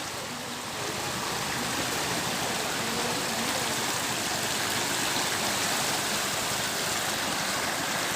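Floodwater of the swollen Thamirabarani river rushing past as a steady, even noise of fast-flowing water.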